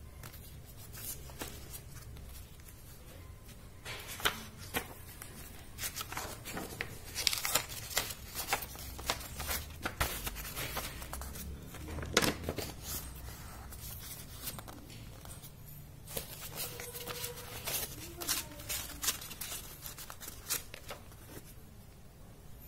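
Paper and cardboard being handled: irregular rustles, taps and small clicks as sheets are slid and laid down, starting a few seconds in, over a steady low hum.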